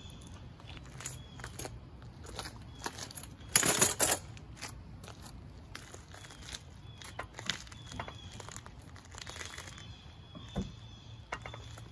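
Gloved hands handling a rusted-out exhaust muffler hanger and bracket at the muffler: scattered small metal clicks and scrapes, with one loud scraping rustle about three and a half seconds in.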